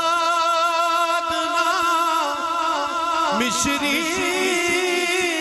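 Male reciter singing a devotional naat through a microphone, drawing out one long held note that starts steady and then begins to waver in pitch. About three seconds in, a lower wavering tone joins underneath.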